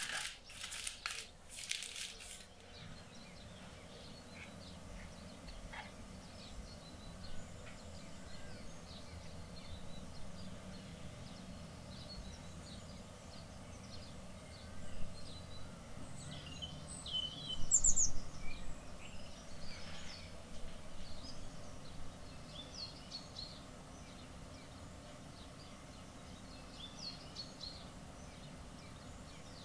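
Aluminium foil crinkling for the first two seconds or so, then birds chirping over a low steady hum, with the loudest calls a little past the middle.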